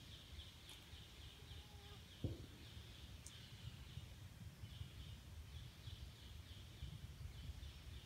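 Faint forest ambience: a high chirping repeating about three or four times a second, pausing briefly around the middle, over a low rumble, with one soft knock about two seconds in.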